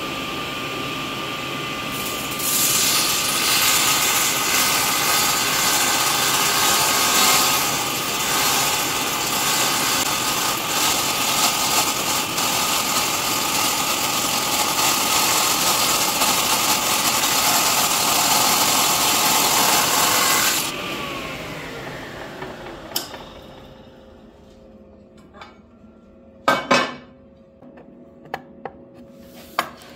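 Table saw with a 10-inch 40-tooth blade running, then cutting a shallow slot in aluminum sheet fed slowly without coolant. The loud, hissing cut starts about two seconds in and stops at about twenty seconds. The motor then spins down with a falling whine, and a couple of sharp knocks follow near the end.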